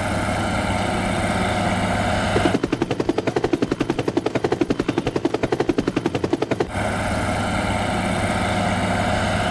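Helicopter sound effect: a steady engine drone that gives way about two and a half seconds in to a rapid, even rotor chop. The chop stops about seven seconds in and the steady drone returns.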